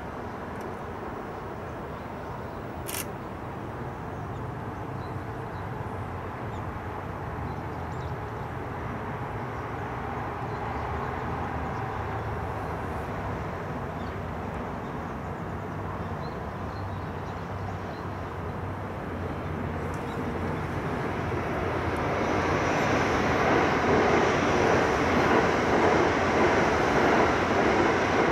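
Container ship under way: a low, steady engine drone under a rushing noise that grows louder over the last third.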